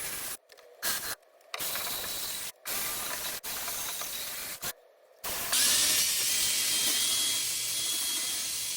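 Drill-mounted wire brush scouring rust off a steel cab floor: a harsh hiss that stops and restarts four times in the first half, then runs on longer and louder from about halfway, with a thin steady whine.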